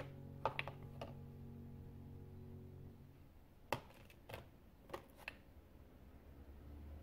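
Small dropper-capped ink bottles clicking and knocking against each other and the clear plastic storage box as they are picked up and set down, several short sharp clicks spread out. Quiet background music ends about three seconds in.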